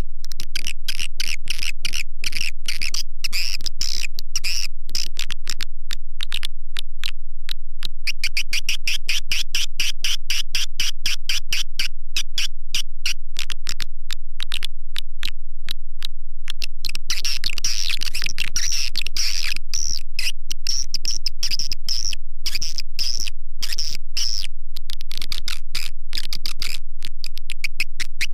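Swiftlet calling sound (suara panggil) for luring edible-nest swiftlets: rapid trains of high chirping clicks in repeated phrases with brief gaps between them.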